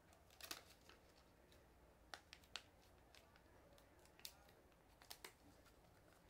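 Faint crisp rustles and creases of green paper being folded by hand into an origami heart, a few short separate sounds over near silence.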